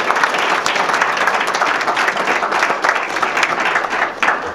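Audience applauding: a roomful of seated diners clapping together, steady and sustained.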